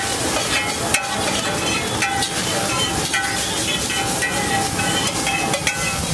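Metal spatula scraping and tapping across a large flat iron griddle, gathering cooked egg off it, with frequent short metallic scrapes, clinks and brief squeals over a steady sizzle from the hot plate.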